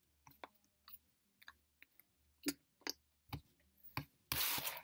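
Scattered faint clicks, then a short hiss of noise near the end that is the loudest sound.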